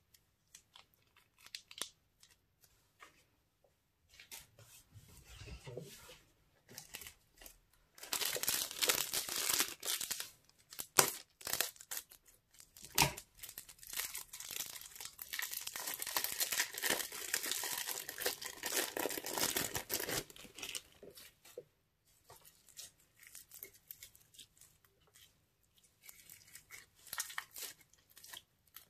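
Plastic bags being handled: crinkling, rustling and tearing as a thin piping bag and a zip-lock bag of green foam-bead slime are pulled open and squeezed, densest and loudest through the middle. Softer scattered crackles follow near the end as the crunchy foam-bead slime is worked in the hands.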